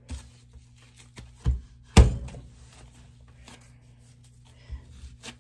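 A few dull thumps and one sharp knock about two seconds in, from bread dough being handled on a plastic cutting board on a kitchen counter, over a faint steady low hum.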